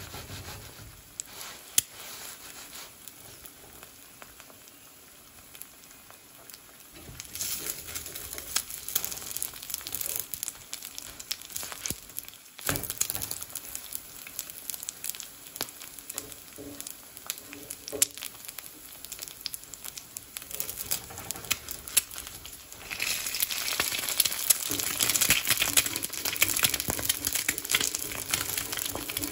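Oil and food sizzling and frying in a hot cast iron pan, with scattered sharp pops and crackles. The sizzle gets louder about a quarter of the way in and louder again near the end.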